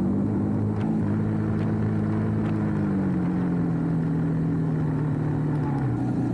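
Motorcycle engine running at a steady idle, its pitch dropping slightly about three seconds in.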